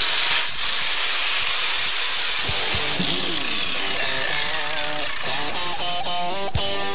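Angle grinder with a wire brush scouring the steel chassis rail around a crack, running with a steady high whine, then switched off about halfway and winding down. Music comes in as it fades.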